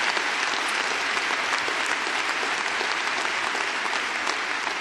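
Audience applauding, a steady dense clapping that eases off slightly toward the end.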